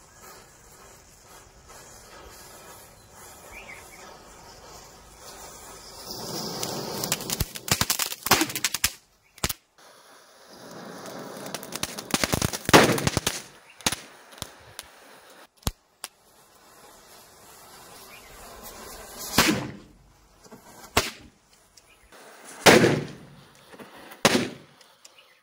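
Burning matchstick chain flaring and hissing, broken by about eight sharp firecracker bangs at irregular intervals as small bijli crackers along the chain go off; the loudest bangs come about halfway through and near the end.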